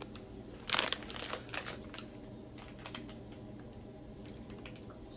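Plastic snack wrapper crinkling as it is opened: a loud rustle about a second in, then a run of short crinkles and clicks that thin out after about three seconds.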